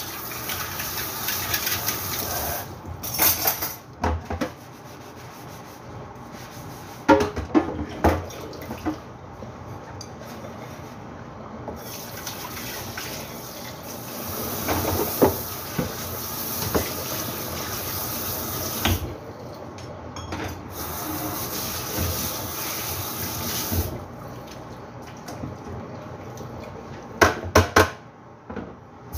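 Tap water running into a kitchen sink while dishes are washed, with dishes and utensils clinking and clattering now and then and a quick run of clatters near the end.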